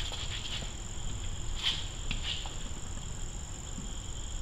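Insects singing with a steady high-pitched drone, with two faint clicks from a ratchet on a long socket extension working on a starter bolt about a second and a half and two seconds in.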